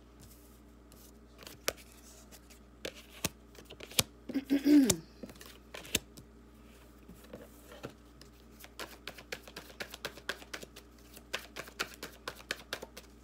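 A tarot deck being shuffled by hand: scattered soft clicks and slaps of cards, one louder burst about four and a half seconds in, then a quicker run of card flicks from about nine seconds on.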